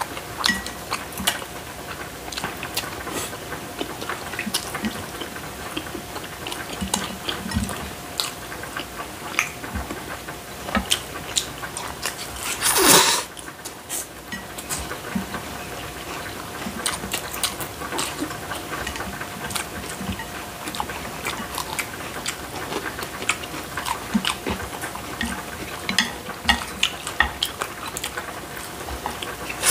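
Close-up eating sounds of spicy cold mixed noodles and boneless fried chicken: many small wet chewing smacks and chopstick clicks on plates, with one loud noodle slurp about 13 seconds in. A faint steady hum underneath.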